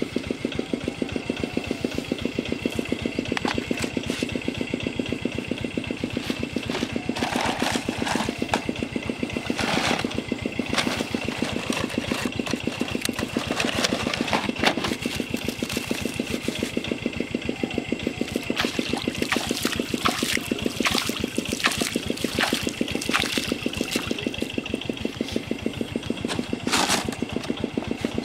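A small engine running steadily, its even rapid pulse going on throughout, under a steady high-pitched tone. From about seven seconds in, scattered crackles and rustles come and go over it.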